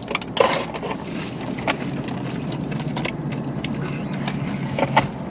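Eating sounds: tortilla chips crunching and a plastic fork clicking and scraping in a plastic nacho tray, with a sharp crunch about half a second in and others scattered through. A steady low hum of the car cabin runs underneath.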